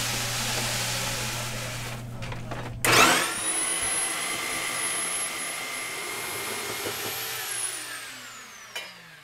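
Electric grain mill milling malt. First a steady grinding hiss with a low hum, then after a short break the motor starts with a quickly rising whine, runs steadily, and winds down with a slowly falling whine near the end.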